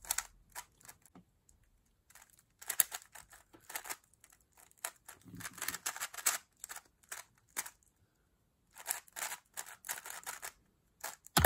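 Dayan TengYun V2 M magnetic 3x3 speedcube being turned fast by hand: rapid clicking and clacking of the layers in quick bursts, with a couple of short pauses. A sharp, loud knock comes near the end.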